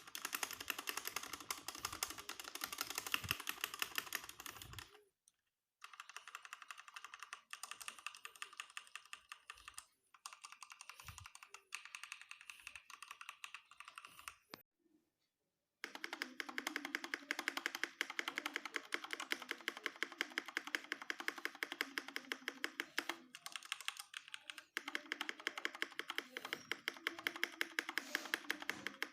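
EK387 mechanical keyboard with Huano red linear switches and lubed stabilizers, typed on in fast runs of keystrokes. The clicking comes in four stretches, with short pauses about 5, 10 and 15 seconds in.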